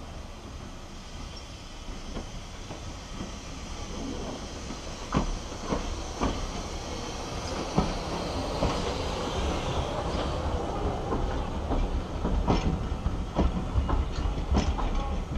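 Steam-hauled passenger train, a saddle-tank locomotive and its coaches, rolling slowly past with the wheels clicking on the rails. The sound grows louder as the train draws level, with sharp irregular clicks over a steady rumble.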